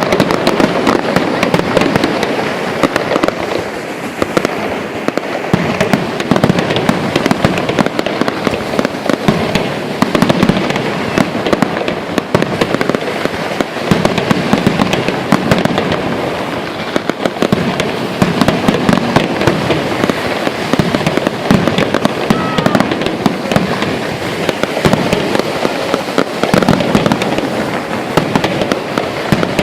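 Fireworks going off in a dense, unbroken barrage: many rapid bangs and crackles overlapping one another.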